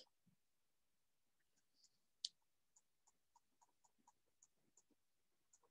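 Faint taps and ticks of a stylus on a tablet screen during handwriting, a few a second, with one sharper click a little over two seconds in.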